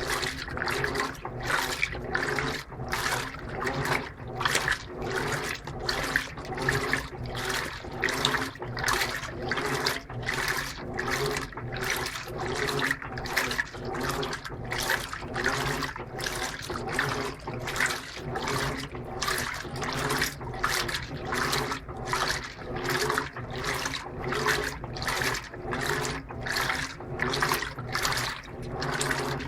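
Electrolux Turbo Capacidade LTP15 top-load washing machine agitating a load of clothes in water with turbo agitation on: a rhythmic swish and slosh with each agitator stroke, about one and a half strokes a second, over a steady motor hum.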